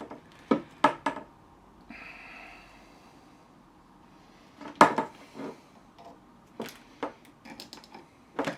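Irregular sharp clicks and knocks of the parts of a telescopic suitcase handle being handled and pushed back together, the loudest knock about five seconds in, with a short scrape around two seconds in.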